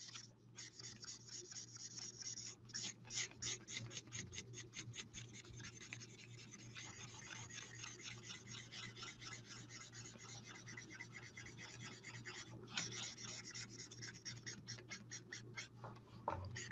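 Faint scratchy rubbing of a Stampin' Blends alcohol marker tip dragged back and forth over cardstock in quick strokes, several a second, with brief pauses, as it blends colour to smooth out streaks.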